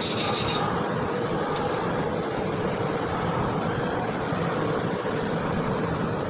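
Stick welding arc crackling steadily as a bead is run along a lap joint.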